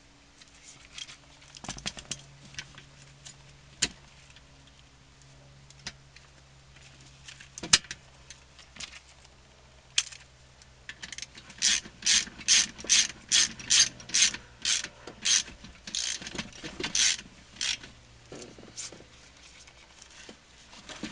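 Hand ratchet with a T50 Torx bit tightening the seat belt buckle's mounting bolt: a few scattered clicks, then about a dozen strokes of ratchet clicking, roughly two a second, near the middle.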